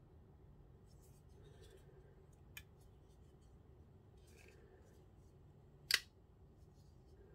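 Faint handling of a KA-BAR Warthog tanto folding knife, with a small click about two and a half seconds in. Just before six seconds comes one sharp, loud click as the steel blade swings open and locks.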